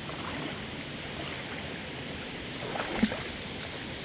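Creek water running steadily, with one short, louder sound about three seconds in.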